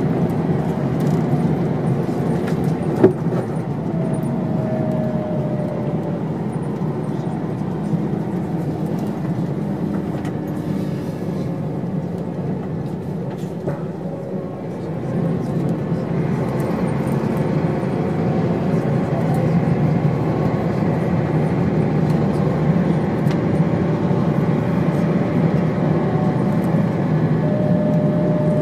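Cabin noise inside a 1997 Steyr SL 12 bus with a Volvo engine at road speed: steady engine and road noise with one sharp click about three seconds in. The noise dips about halfway through, then grows louder again.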